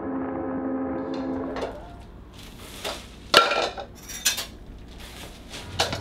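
Background music for the first couple of seconds, then dishes and cutlery clattering and clinking in a few separate sharp knocks, the loudest about three and a half seconds in.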